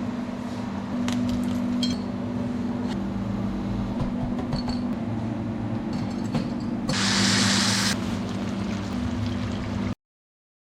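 Cooking sounds: metal utensils clinking a few times over a steady low hum, with a loud hiss of sizzling for about a second near the middle. The audio cuts off suddenly just before the end.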